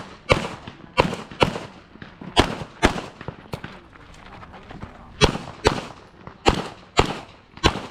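Handgun shots fired rapidly on an IPSC stage, about ten in all and mostly in quick pairs roughly half a second apart, with a gap of about two seconds in the middle.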